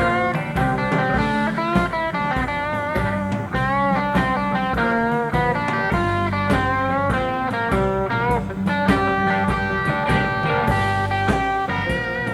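Live blues-rock band playing: an electric guitar lead full of bent notes over bass and drums.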